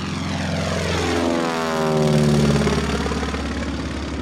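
Propeller airplane flying past, its engine note dropping in pitch as it passes, loudest about two seconds in.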